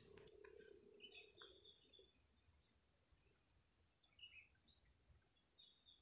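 Insects chirring in one steady, continuous high-pitched drone, with a few short faint chirps over it.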